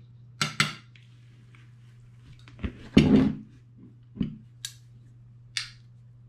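Metal knife and fork clinking, scraping and knocking against a ceramic plate in a few short strokes, the loudest about three seconds in, over a steady low hum.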